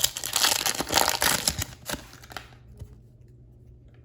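Foil wrapper of a Bowman trading-card pack crinkling as it is handled and torn open; it stops about two and a half seconds in.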